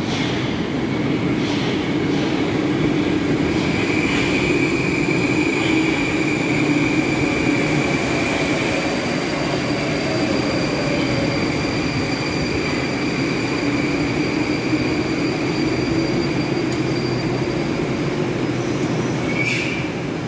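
Moscow Metro 81-775/776/777 "Moskva-2020" train pulling into the station and running along the platform as it slows to a stop. A steady rumble runs under a high-pitched tone that holds for most of the arrival. A short sharp sound comes near the end.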